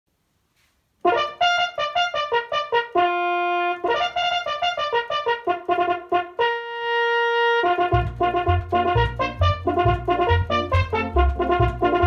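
Electronic home organ playing a lively arena-organ tune. Quick runs of short notes are broken by two held chords, and a low bass line comes in about eight seconds in. The music starts about a second in after a moment of silence.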